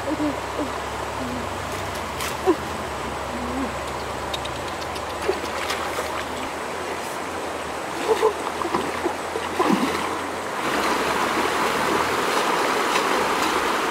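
Shallow rocky stream running steadily. About ten seconds in it gets louder and brighter, with splashing as a person wades through the water.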